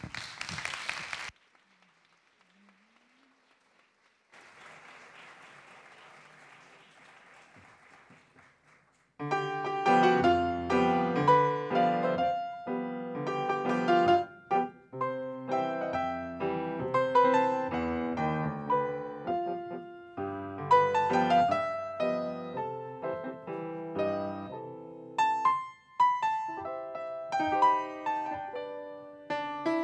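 A short burst of applause, then after a pause a grand piano starts playing solo about nine seconds in: the piano introduction to a Spanish cuplé song.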